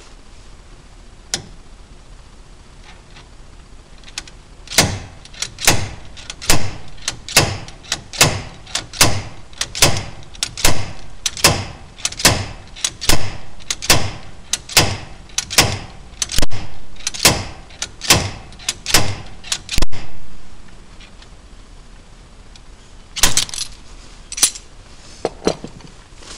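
Slide hammer striking repeatedly, sharp metal clanks a little over once a second for about fifteen seconds, then two more strikes near the end, pulling the old wheel bearing and seal out of a Ford 8.8 rear axle tube.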